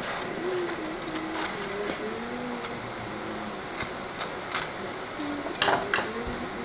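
Stiff printed paper being handled, with a few short, sharp crinkles and clicks. A faint melody runs underneath.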